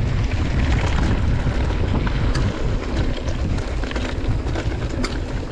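Wind rushing over the microphone of a mountain bike riding down a trail, mixed with tyre noise on the trail surface and scattered clicks and rattles from the bike.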